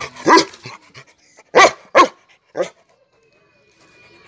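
Young Rottweiler barking four times, three loud barks and a weaker fourth, at a Diwali firecracker held out in front of it.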